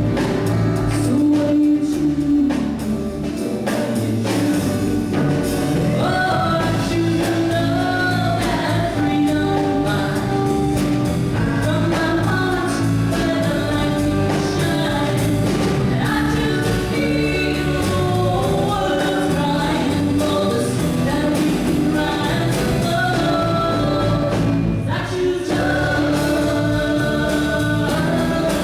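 Gospel-style song: voices singing over instrumental accompaniment.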